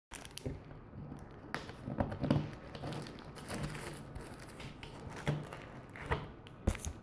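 Handling noise: scattered clicks, knocks and rustles as a painted canvas panel is held up and shifted about close to the microphone.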